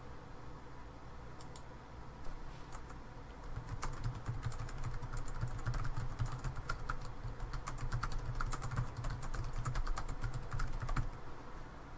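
Typing on a computer keyboard: a few scattered keystrokes, then a quick, busy run of key clicks from a few seconds in until near the end.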